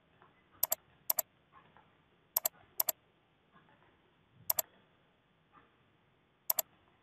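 Computer mouse clicks in quick press-and-release pairs, six pairs spaced unevenly, as shapes and tools are picked and drawn. They are crisp and sharp over faint background hiss.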